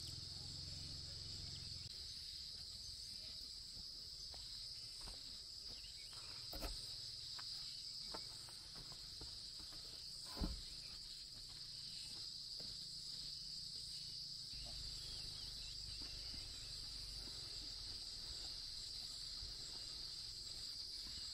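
Steady, high-pitched insect chorus. Two sharp knocks cut through it, about six and a half and ten and a half seconds in, the second louder.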